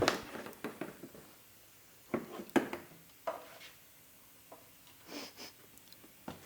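A few scattered small clicks and knocks from hand tools and parts being handled while the mower's fuel filter and fuel line are changed.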